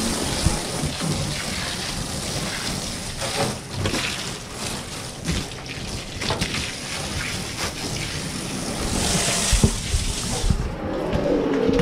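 Water jet from a garden hose spattering onto a sheet-metal roof gutter: a steady rain-like spatter with scattered ticks, loudest about nine seconds in. A steady hum sets in near the end.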